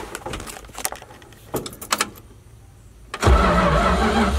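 A few light clicks and knocks, then about three seconds in the 1972 Dodge D100's 318 two-barrel V8 fires up and runs loudly through glass-pack mufflers off the stock manifolds, a warm start just after driving.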